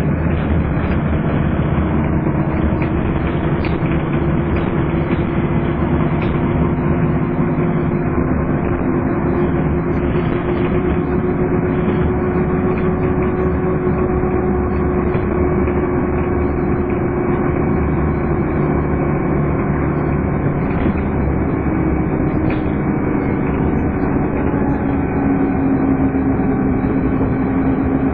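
Scania N230UD double-decker bus engine running under way, with the steady vacuum-cleaner-like whine that enthusiasts call 'hoovering'; the whine's pitch shifts lower near the end.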